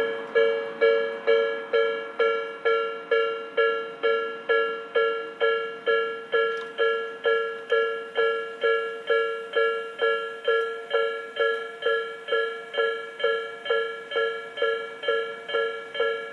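Japanese railway level crossing alarm sounding its steady warning: a ringing 'kan-kan' tone struck about twice a second, each strike decaying before the next.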